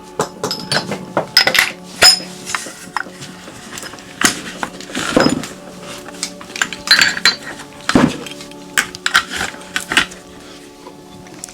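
Metal hand tools clinking and clattering as they are handled and packed into a tool bag, in irregular knocks with a few louder clatters.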